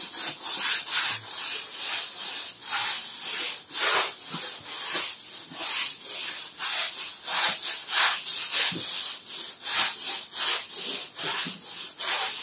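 Stiff broom bristles scrubbing a wet, soapy rough concrete floor in repeated back-and-forth strokes, about two a second, each a scratchy swish.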